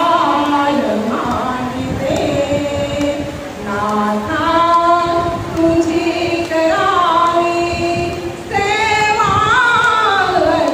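A woman singing a song into a handheld microphone, unaccompanied, her voice gliding between long held notes.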